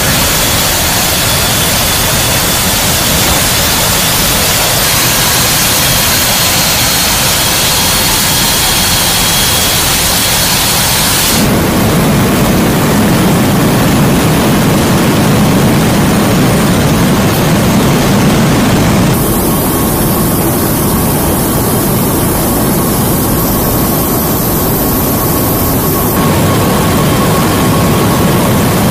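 Steady rush of wind and jet-engine noise at the open paratroop door of a flying C-17 Globemaster III. About a third of the way in it switches abruptly to the deeper, steadier drone heard inside the cargo hold, and the hiss shifts suddenly twice more later on.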